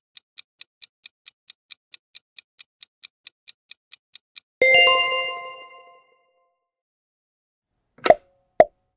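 Countdown-timer sound effect: clock-like ticking at about four ticks a second, then a bright bell ding a little over four seconds in that rings out for about a second, marking time up. Near the end two short pops sound as the next question appears.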